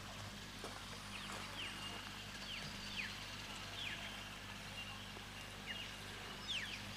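Faint bird calls: a series of short, high whistles, each slurring downward, roughly one a second and sometimes in quick pairs, over a steady low hum.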